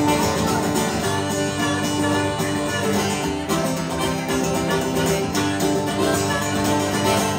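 Country instrumental break on a strummed acoustic guitar, with a harmonica in a neck rack playing held chords over it.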